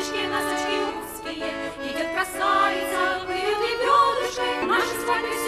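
A woman singing a Russian folk-style song into a microphone over instrumental accompaniment with long held chords; her voice bends and wavers on sustained notes.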